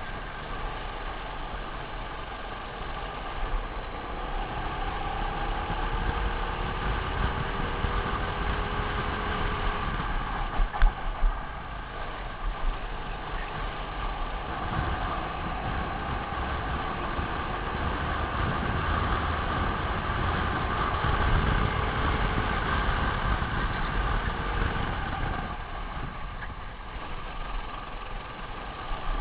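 Racing kart engine running at race speed, heard from on board, its pitch gliding up and down through the corners. A few sharp knocks stand out about eleven seconds in.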